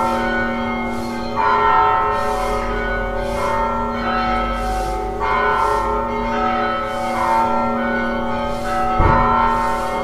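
Church tower bells ringing: several bells of different pitches struck one after another about once a second, their tones overlapping and ringing on. A sharp low thump comes about nine seconds in.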